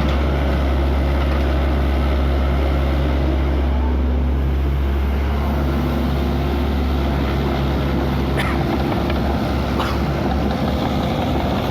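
Hydraulic excavator's diesel engine running steadily under load. Two brief knocks sound near the end.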